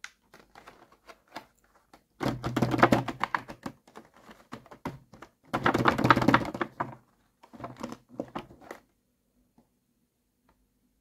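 Fingertips tapping and pressing on the clear plastic blister packaging of a toy food set, rapid clicky taps in three bursts with scattered single taps between, stopping a couple of seconds before the end.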